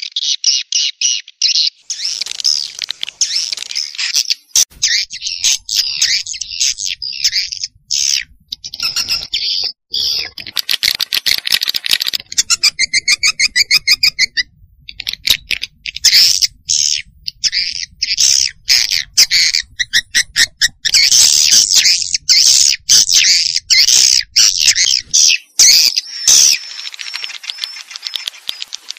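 Swiftlet lure call: dense, continuous high twittering, chirps and clicks of swiftlets, the sound played to draw swiftlets into a swiftlet house. About halfway through comes a fast rattling trill.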